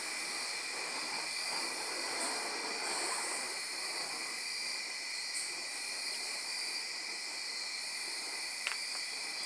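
Night insect chorus: several steady high-pitched trills running on without a break.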